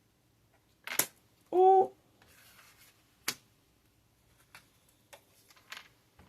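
Sharp taps and clicks with a short rustle, tarot cards being handled and laid down on a table: a loud click about a second in, a soft rustle, another click a little after three seconds, then a few fainter taps.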